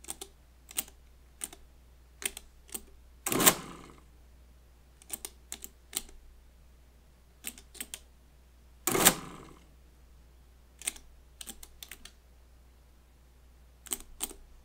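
Friden STW10 mechanical calculator: its full-keyboard number keys click down one at a time in small irregular groups. About three and a half and nine seconds in, the machine runs two short half-second cycles, adding the entered number into the register.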